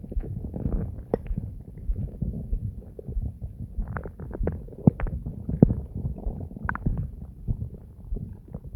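Human stomach and intestines gurgling during digestion, heavily amplified and distorted: a continuous low, churning rumble with sharp pops and squelches, clustered in the middle of the stretch.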